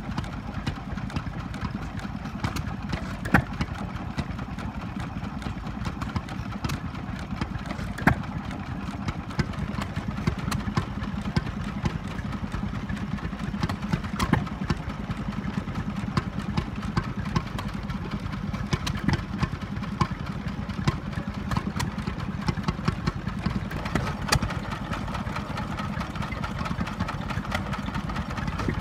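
Vintage open-flywheel stationary engines running, a steady engine sound with sharp knocks now and then.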